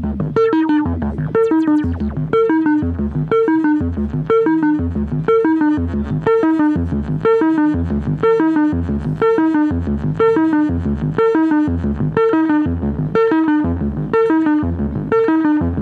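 Korg ARP 2600 reissue analog synthesizer playing a repeating sequenced line of short, plucky notes, about two a second, each with a deep bass pulse under it.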